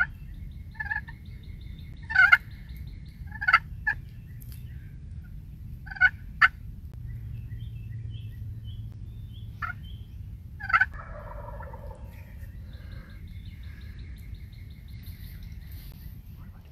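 Wild turkey gobbling again and again, each call short and loud, with small birds chirping thinly in between over a steady low rumble.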